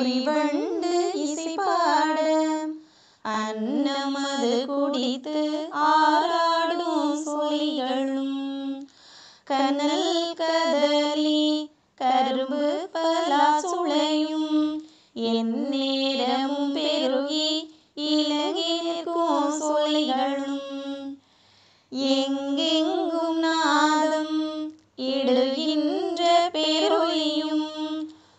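A woman's voice singing a slow devotional song without accompaniment, in phrases of two to three seconds with short breaths between them.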